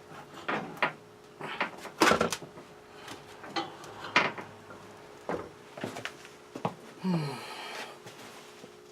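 Irregular knocks and clanks of hands and tools working on old boiler pipes and fittings, about a dozen in all, with a short falling creak about seven seconds in. A faint steady hum runs underneath.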